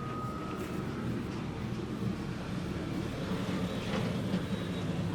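Steady low rumble of street traffic, with a faint steady tone in about the first second.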